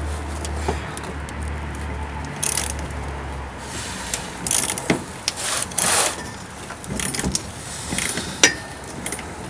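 Socket wrench and metal parts clinking and scraping in irregular bursts as a rusted cab-mount bolt on a 1967 Chevrolet C10 is worked loose. A low steady hum underlies the first few seconds and then stops.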